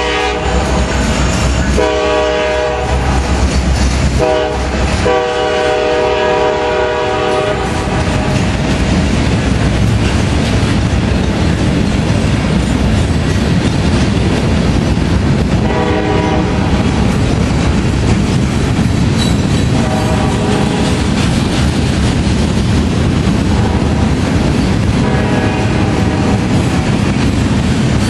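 Freight locomotive's Nathan K5LLA five-chime air horn sounding the grade-crossing pattern, long, long, short, long, then the steady rumble and clickety-clack of the loaded coil steel cars rolling past. Fainter horn chords sound again three more times later on.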